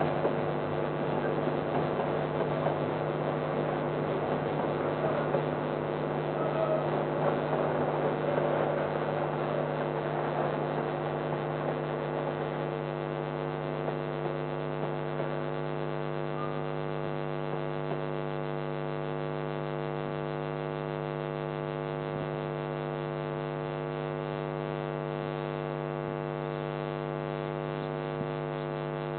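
Steady electrical mains hum in a security camera's audio. Over the first ten seconds or so it is overlaid by the fading rumble of a passing train.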